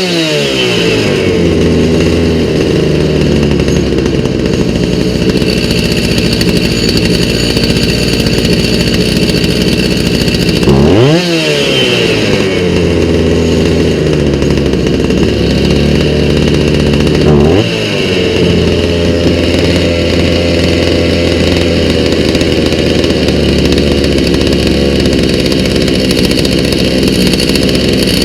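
Stihl MS290 two-stroke chainsaw engine running on a newly fitted aftermarket carburetor: revs drop to a steady idle at the start, and the throttle is blipped twice, about eleven and seventeen seconds in, with the engine falling back to idle each time.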